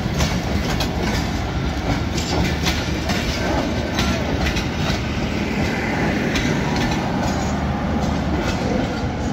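Pakistan Railways passenger coaches rolling past close by: a steady rumble of wheels on rails with a rapid clatter of clicks as the bogies cross rail joints.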